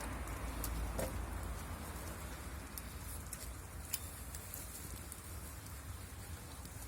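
Wood bonfire crackling, with scattered sharp pops; the loudest pop comes about four seconds in.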